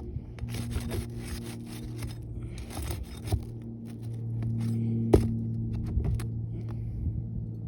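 Scraping and rubbing on asphalt roof shingles, in several short bursts with a few sharp knocks, during a shingle repair. A steady low hum runs underneath.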